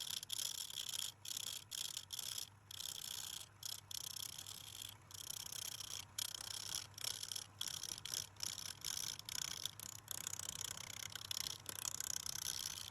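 Wood lathe turning, with a turning chisel scraping and cutting the spinning wood: a hissing shave that stops and starts many times a second as the tool touches and leaves the work, over the steady low hum of the lathe's motor.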